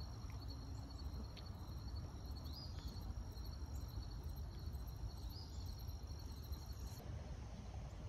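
Faint outdoor ambience: a steady, high, thin drone of insects such as crickets, with a low rumble beneath and a couple of faint short chirps. The insect drone cuts off shortly before the end.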